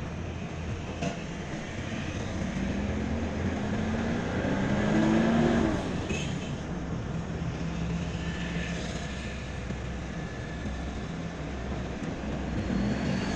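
Car engine and road noise heard from inside a moving car, the engine note climbing as it accelerates from about two to five seconds in, then settling to a steady drone.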